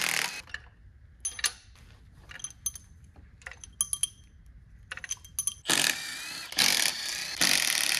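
Cordless power driver running, spinning bolts out of an LS3 V8's valvetrain, briefly at the start and again in three bursts from about two-thirds of the way in. In between, light metallic clinks as steel pushrods are pulled from the cylinder head and set down.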